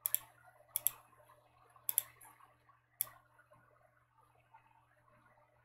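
Computer mouse clicking: a handful of sharp clicks, some in quick pairs, over the first three seconds, then only faint room noise with a steady low hum.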